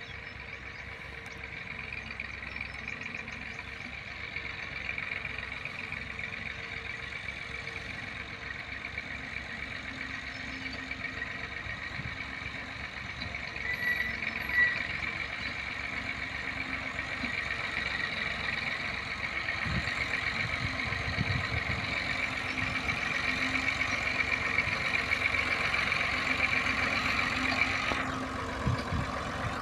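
Massey Ferguson 240's three-cylinder diesel engine running under load as it pulls a heavily loaded trolley, growing louder as it draws near, with a steady high whine over the engine's low beat.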